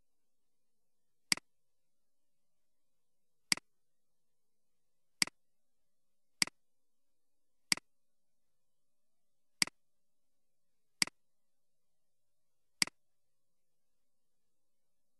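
Computer mouse button clicks: eight single, sharp clicks spaced one to two seconds apart over a very quiet background.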